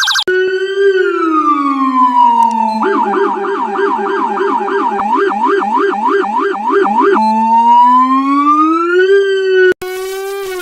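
Electronic police siren sound effect: a slow wail falling in pitch, then from about three seconds in a fast yelp of about three to four sweeps a second, then a slow wail rising and falling again. Near the end it cuts off abruptly and a quieter, hissier edited variation of the wail takes over.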